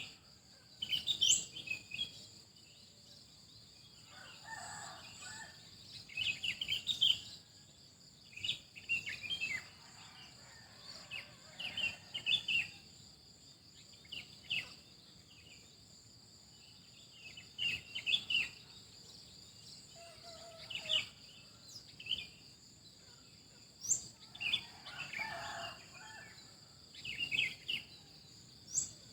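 Morning birdsong: small birds chirping in short, quick bursts every second or two over a steady high-pitched insect drone. A couple of lower, fuller bird calls come in about four seconds in and again near the end.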